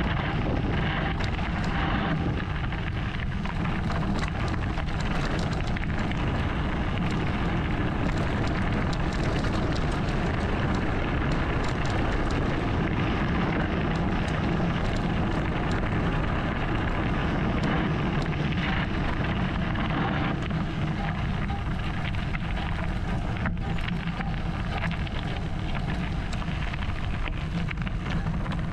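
Wind rushing over the camera microphone and a mountain bike's knobby tyres rolling fast over a gravel and dirt track, with a constant crackle of small stones and frequent clicks and rattles from the bike over the rough surface.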